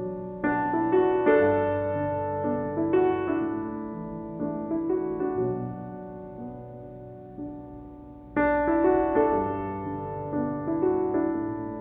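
Background piano music: a soft, slow piece of gentle notes and chords, with a fresh phrase entering about eight seconds in.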